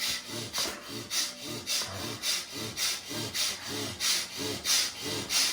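A person doing bhastrika (bellows breath): forceful, rapid breaths pumped in and out through the nose, an even rhythm of about two to three strokes a second, quickening slightly toward the end.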